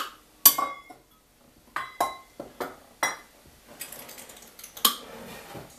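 Metal measuring cup clinking and knocking against a stainless steel mixing bowl as flour is measured: a handful of separate sharp clinks, some with a short ring. Near the end a kitchen canister lid is handled with a soft rustle and a knock.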